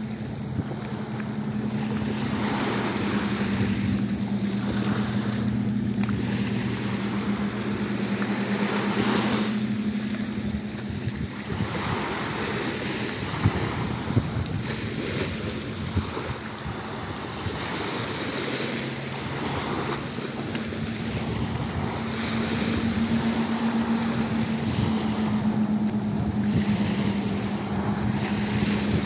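A 12-metre speedboat's 300 hp outboard engines running at high speed in a steady drone that wavers slightly in pitch, growing louder near the end as the boat comes close. Wind on the microphone and the hiss of spray and waves run underneath.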